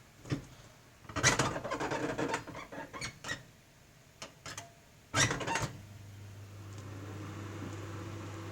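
Clicks and knocks from handling a microwave oven, with a loud clunk about five seconds in. Then the microwave oven starts and runs with a steady low hum.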